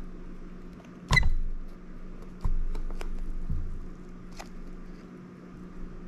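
Small clicks and taps of a razor blade and plastic membrane keypad being handled on a wooden counter while the keypad layers are pried apart. There is a loud knock about a second in and two duller knocks over the next two and a half seconds, over a steady low hum.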